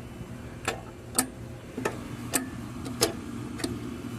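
Sink pop-up drain stopper clicking as its pivot rod is worked up and down: about six sharp clicks, roughly half a second apart. The installer feels the stopper dragging, as if it is hitting the back side of the drain pipe.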